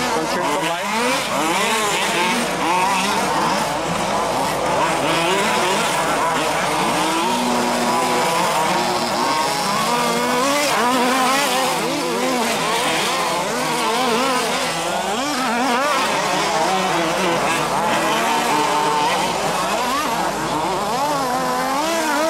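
Several large-scale RC off-road buggies racing together, their small two-stroke petrol engines revving up and down in overlapping, constantly changing whines.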